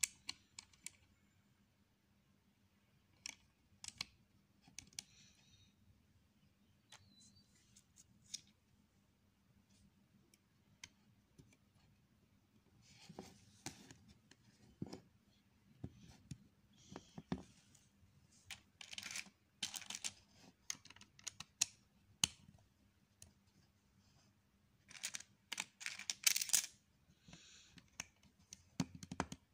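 Plastic Lego bricks clicking and rattling as they are handled and pressed together: scattered sharp clicks, with busier clusters in the middle and near the end.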